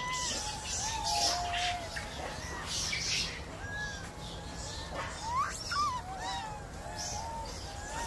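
Animals calling: many short high calls that rise and fall in pitch, several overlapping, with a steady low rumble beneath.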